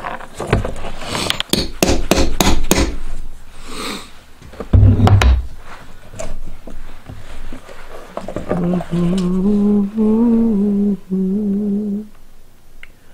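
Short knocks and clatter of tools and leather being handled on a wooden workbench, with one heavy thump about five seconds in. From about eight seconds in, a man hums a tune on a few held notes.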